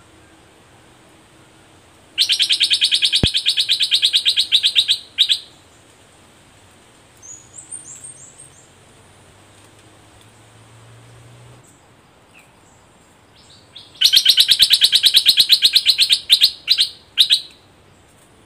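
Bulbul giving two long, loud, fast rattling trills of rapidly repeated notes, each trailing off into a few separate notes. This is the song of a caged decoy bulbul or the wild bulbul it is luring, used to provoke a territorial rival.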